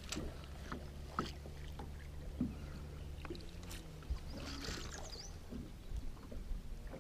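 Electric trolling motor humming faintly and steadily, with a few light clicks and a brief hiss about four and a half seconds in.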